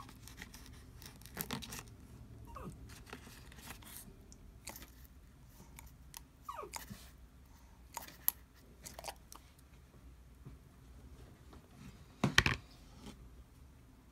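Savannah monitor crunching quail eggs, the shells cracking in its jaws in irregular crunches and clicks, with the loudest cluster near the end.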